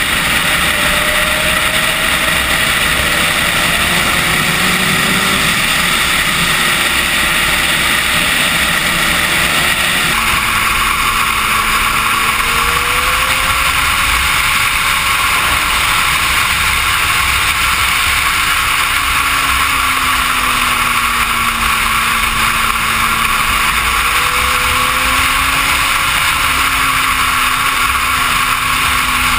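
Suzuki GSX-R sportbike's inline-four engine running at speed under heavy wind rush on the microphone, its pitch drifting slowly up and down. The sound changes abruptly about ten seconds in.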